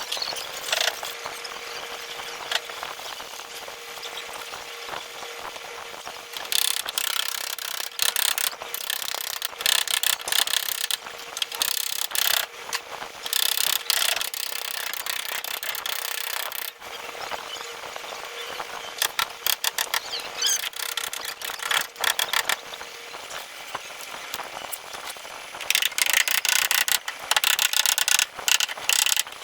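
Hand tools working on a car in a body shop: repeated bursts of ratcheting and scraping, over a steady hum that stops about two-thirds of the way through.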